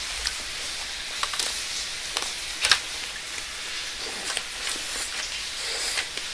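Someone eating a fried pastry: irregular small clicks and rustles, a few seconds apart, over a steady hiss.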